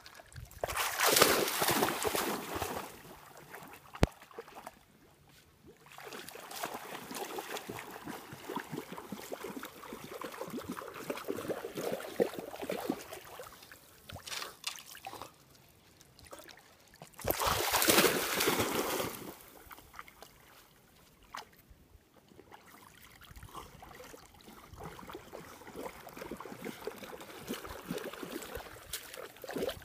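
Lake water splashing and sloshing around a chow chow as it swims and wades with a stick in its mouth, with two louder splashy stretches, one just after the start and one about two-thirds through. A single sharp click about four seconds in.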